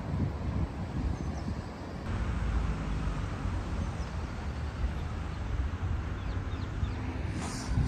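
Outdoor ambience: a steady low rumble with a few faint, high bird chirps.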